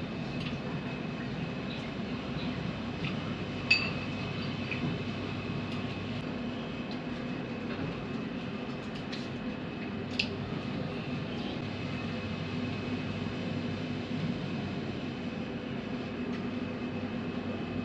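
A steady low hum of room machinery, with two sharp clinks of cutlery on a bowl, about six seconds apart.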